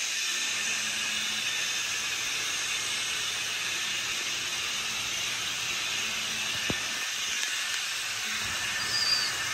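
N scale model freight trains, led by Kato AC4400CW locomotives, running at full throttle on the layout's track: a steady whirring hiss with a faint low hum. There is a single click about two-thirds of the way through and a brief high squeak near the end.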